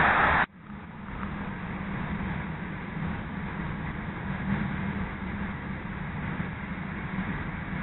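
CTA 5000-series rapid transit car running at speed, heard from inside the car: a steady rumble of wheels on rail and running gear. Just before it, a loud rushing noise cuts off abruptly about half a second in.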